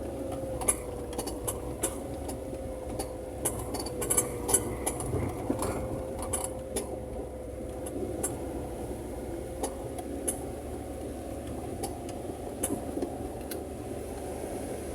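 Vehicle driving on a wet, snowy track: the engine and drivetrain run with a steady drone and whine, and scattered clicks and knocks come from the body and the rough road.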